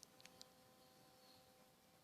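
Near silence: room tone with a few faint clicks in the first half second.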